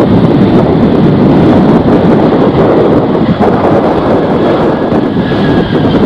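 Loud steady rushing of an airliner's engines, mixed with strong wind buffeting the microphone; a faint thin whine shows near the end.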